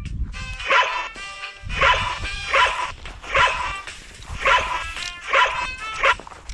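A dog barking repeatedly, about seven barks under a second apart, over a low rumble.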